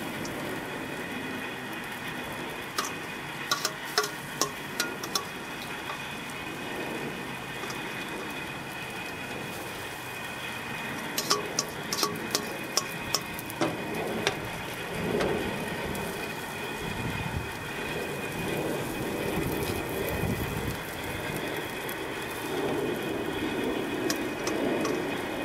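Metal tongs clicking and scraping against a stainless steel bowl in two runs of quick clicks, as leftover marinade and capers are scraped onto zucchini on a hot gas grill, over a steady sizzling hiss.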